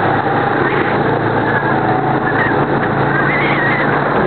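Go-kart engine running steadily at speed, heard close from a camera mounted on the kart, with a dense rushing noise and a few brief wavering high tones over it.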